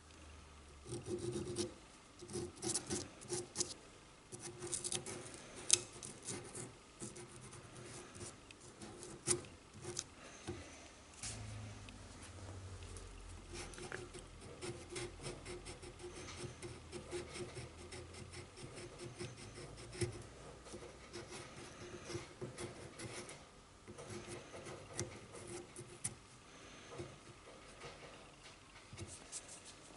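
A small round abrasive stone worked by hand around the inside edge of a 1911 .45 barrel's chamber mouth, scraping the steel in short, irregular strokes with a few sharper clicks, chamfering off an edge that was left sharp.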